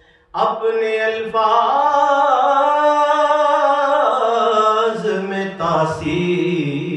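A man chanting an unaccompanied devotional Islamic recitation. He starts after a brief pause, holds one long note that rises and falls slightly through the middle, then moves into a new phrase.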